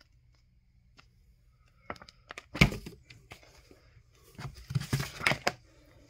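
Comic books and a cardboard box being handled: a few light clicks, a loud thump about two and a half seconds in, then a run of paper and cardboard rustling near the end.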